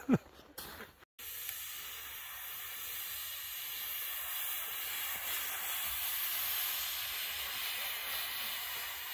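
A black plastic sled sliding down a packed snow hill with a rider on it: a steady scraping hiss of the sled over the snow, a little louder as it comes nearer.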